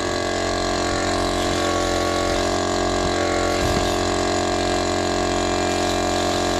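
Air compressor that feeds a paint spray gun, running steadily.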